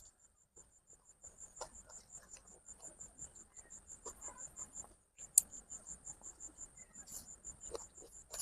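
An insect, a cricket by its sound, chirping in a steady run of short high-pitched pulses, about four a second. A few sharp clicks fall among them, the loudest about five seconds in.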